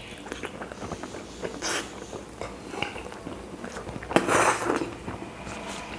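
A person eating chapatis: small clicks and soft noises of chewing, tearing bread and handling the plate, with one louder noisy burst about four seconds in that lasts about half a second.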